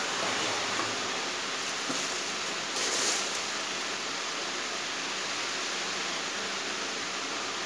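Chaoba 2800 hair dryer running steadily, a constant rush of blown air. The hiss briefly grows louder and sharper about three seconds in.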